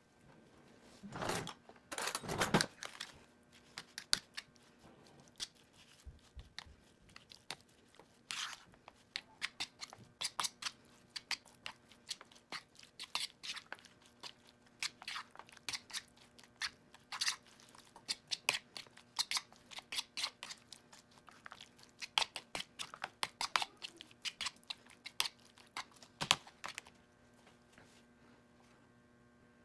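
A metal fork stirring sliced raw beef, a raw egg and marinade on a plate: many quick clicks and taps of the fork against the plate, with wet squishing of the meat. A couple of louder handling noises come in the first few seconds.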